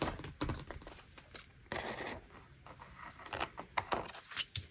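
A loose paper planner page being handled, lifted and set down: scattered light taps and paper rustles, with a short louder rustle about two seconds in.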